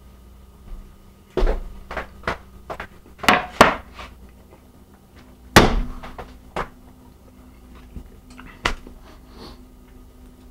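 A series of sharp knocks and thuds from things being handled and set down on a kitchen counter, irregular and bunched in the first half, the loudest about halfway through.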